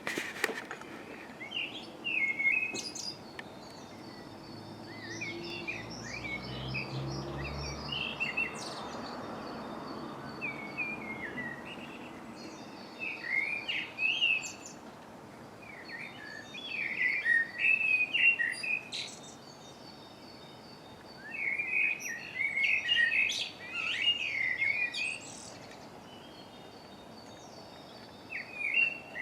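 Dawn chorus: several songbirds singing, phrase after phrase, with the loudest bursts of song coming in clusters through the middle and later part. A low rumble rises and fades in the background in the first third.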